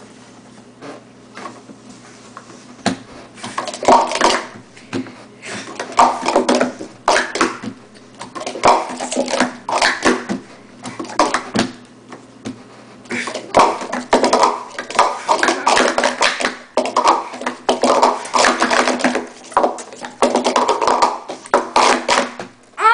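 Green plastic sport-stacking cups being stacked up and down fast on a mat, a rapid clatter of cups clicking and tapping together in runs of several seconds with short pauses between.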